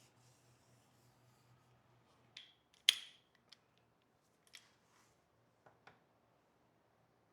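A few sharp metallic clinks and taps of hand tools against engine parts, the loudest about three seconds in with a brief ring, then several lighter taps.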